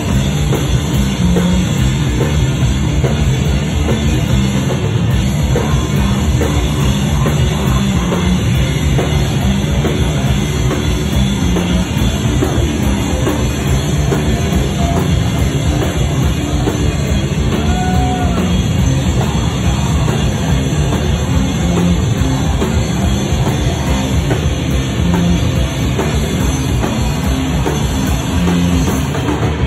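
Sludge metal band playing live, loud and without a break: heavily distorted guitar and bass over a full drum kit.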